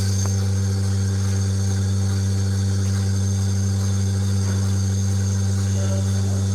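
Milking machine's vacuum pump motor running with a steady, unchanging hum.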